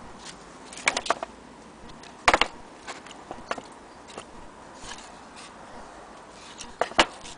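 Scattered sharp clicks and knocks of handling small objects: a quick cluster about a second in, the loudest knock about two seconds in, a few lighter taps after it, and a close pair near the end.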